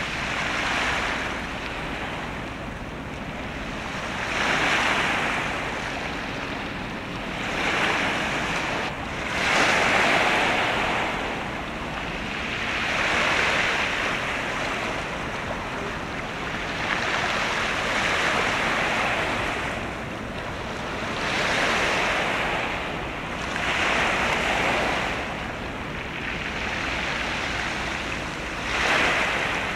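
Sea waves washing in and falling back, swelling every three to four seconds.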